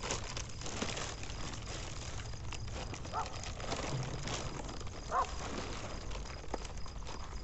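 An animal barking faintly, with short calls about three seconds in and again about five seconds in, over a steady low rumble of outdoor background.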